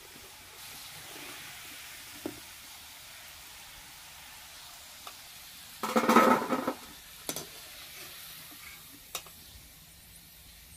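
Hot oil sizzling steadily as wheat-flour and jaggery fritters deep-fry in an aluminium kadhai, with a wire skimmer clinking and scraping against the pan; the loudest is a scrape lasting about a second, six seconds in.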